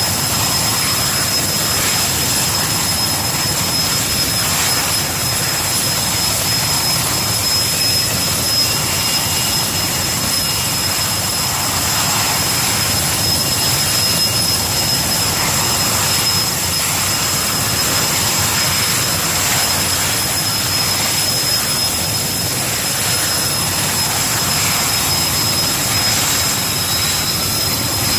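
Erickson S-64 Air-Crane heavy-lift helicopter's twin turboshaft engines running steadily: a loud, even rush of noise with several high, steady turbine whine tones over it.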